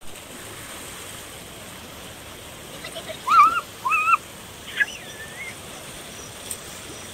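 Steady rush of river water, with two short high arching calls about three seconds in and a third, rising and wavering call about a second later.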